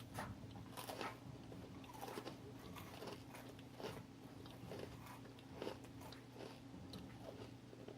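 Faint, irregular crunching and chewing as Oreo cookies are bitten into and chewed, with small crunches coming a few times a second.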